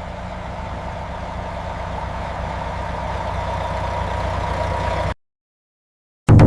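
Steady, low engine-like mechanical rumble that slowly grows louder for about five seconds, then cuts off abruptly. After a second of silence, a loud brass-like musical note starts just at the end.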